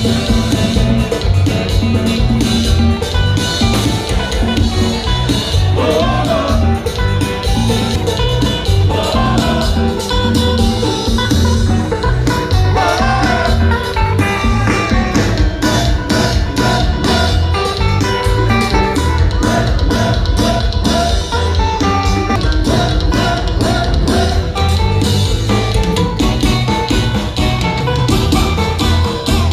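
Kompa band playing live: electric guitar over a drum kit and bass with a steady beat.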